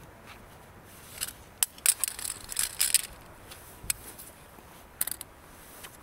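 Close handling noise: sharp clicks and short crunching scrapes, a flurry of them from about one to three seconds in and a few more about five seconds in.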